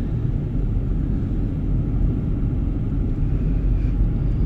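A car driving along, heard from inside the cabin: a steady low rumble of road and engine noise.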